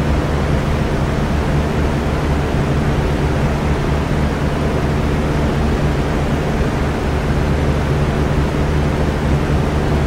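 Electric fan running steadily: an even rush of air with a low, constant motor hum beneath it.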